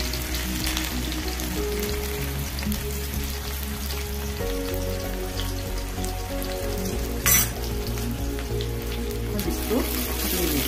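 Chopped onion frying in hot mustard oil in an iron kadhai: a steady sizzle, with one sharp clink about seven seconds in and a ladle stirring near the end.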